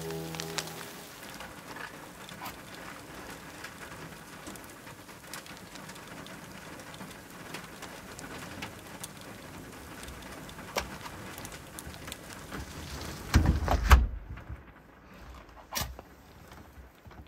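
Freezing rain falling steadily, with many separate drips tapping on surfaces. Near the end a few heavy low thumps, then the rain drops away and one sharp knock sounds at the metal wood stove.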